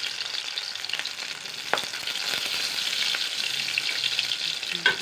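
Burger sizzling as it fries in a pan, a steady crackle, with a sharp click about two seconds in and another near the end.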